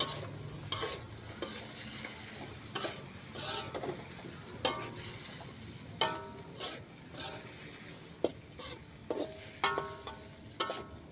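Metal spatula scraping and knocking against a wok as vegetables are stir-fried, with a steady sizzle of frying underneath. The strokes come irregularly, and a few ring out as clinks in the second half.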